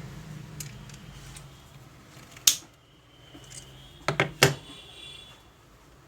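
Sharp metallic clicks and knocks of tools and parts being handled while a sewing machine is taken apart: one loud click about two and a half seconds in, then a quick cluster of three or four about four seconds in. A faint low hum fades away in the first two seconds.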